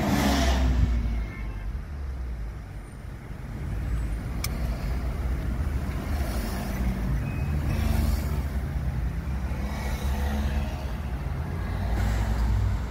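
Car driving, heard from inside with the side window partly open: a steady low road and engine rumble, with a loud rush of noise right at the start and several softer swells later.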